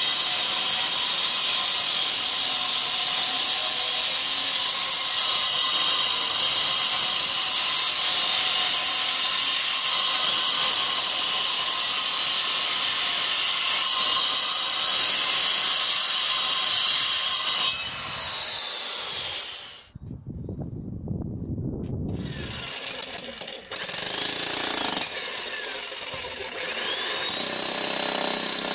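Angle grinder cutting into a concrete slab, a loud steady high whine with a gritty hiss, which stops about eighteen seconds in. Near the end a Titan electric hex-shank breaker hammers at the concrete to break it out.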